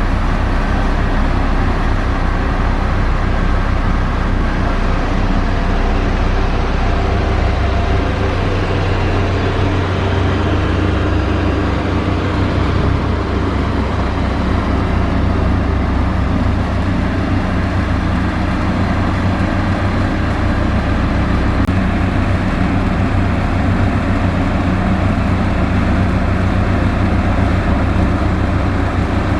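Diesel engine of heavy road-construction machinery running steadily under load, a continuous low rumble.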